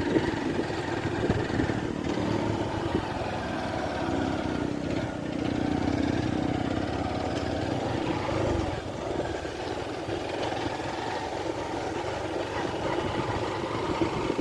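Small motorcycle engine running steadily under way, its drone growing a little louder midway.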